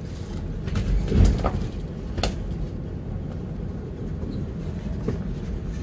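Vehicle driving slowly, heard inside the cabin as a steady low rumble, with a heavy thump about a second in and a few sharp clicks or knocks, the clearest about two seconds in.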